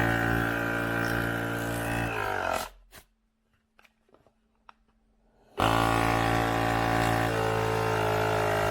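Small electric tyre inflator's piston compressor running with a steady buzzing drone. About two seconds in it winds down and stops. After a few faint clicks it starts again suddenly about three seconds later and runs on.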